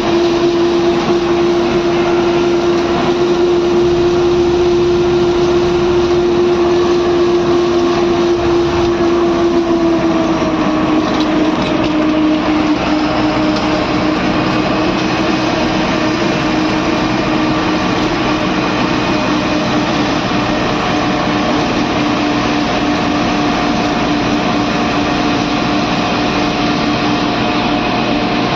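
Bus engine droning steadily while the bus drives along the road, heard from inside the driver's cab over constant road and wind noise; the engine's pitch drops slightly about ten seconds in.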